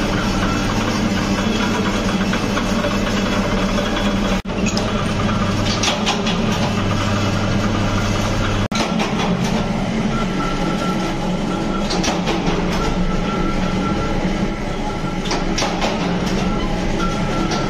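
Steady workshop machinery noise: a running motor's hum with clattering and clicks over it. It breaks off for an instant twice, about four and nine seconds in.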